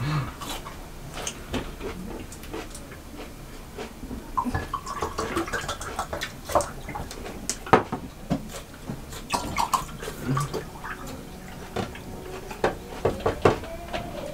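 Eating sounds: irregular small clicks, smacks and plate noises of people eating chicken biryani by hand.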